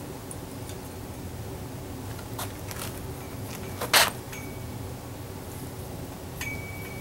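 Vinyl electrical tape being pulled off the roll and wrapped around coax on a metal mast: a few faint crackles, then one short, loud rip about four seconds in. Later there is a thin high squeak, twice, over a steady low rumble.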